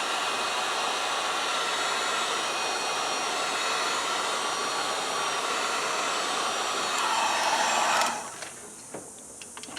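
Heat gun blowing steadily, heating shrink tubing over a bullet connector; it switches off about eight seconds in, followed by a few light clicks.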